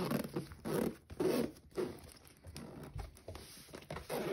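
Zipper of a Five Star zippered binder being pulled open in short, halting tugs, worked one-handed.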